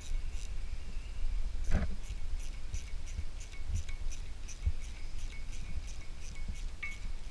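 Ratchet tool clicking in a steady run of short metallic ticks, about three a second, as bolts are undone on a cast-iron tractor front-axle part held in a vise. One louder metal knock comes about two seconds in.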